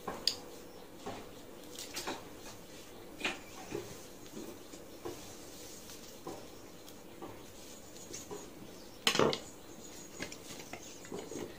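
Kitchen knife cutting and peeling onions on a wooden chopping board: scattered light taps and knocks, with one louder knock about nine seconds in.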